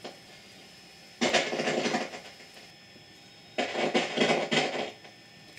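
Thunder: two sharp, crackling peals that start suddenly and last about a second and a half each, a little over two seconds apart.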